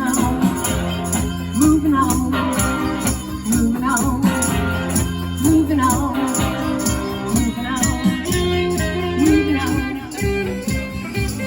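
A band playing a song with a steady beat, a shaker-like rattle keeping time and a sung melody over a bass line.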